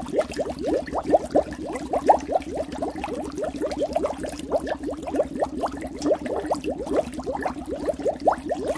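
Air bubbles in water, bubbling steadily as a dense stream of quick rising blips, several a second.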